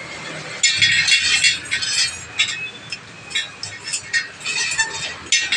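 Metal motorcycle wheel spokes clinking and jangling against each other and the rim in quick clusters while they are handled and laced, some with a brief ring.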